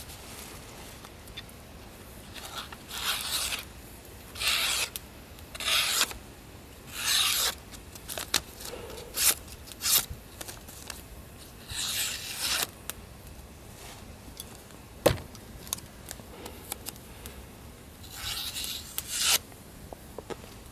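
ESEE Laser Strike and Spyderco Bushcraft knife blades slicing through a held sheet of paper in about six separate strokes, each a short rasping hiss. A few sharp clicks fall between the strokes.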